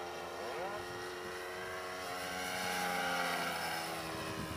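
HP VT21 four-stroke model aircraft engine, which has a rotary valve in the head, running at full throttle as the RC plane flies past. A steady drone that grows louder to a peak about three seconds in, then fades.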